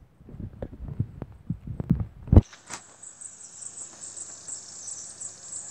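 Handling bumps and rustles on the phone's microphone, ending in a loud thump a little over two seconds in, then a steady, wavering high-pitched buzz of insects in the trees.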